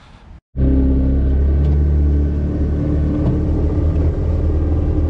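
Wooldridge jet boat's engine running steadily at a loud, even drone, which starts abruptly about half a second in.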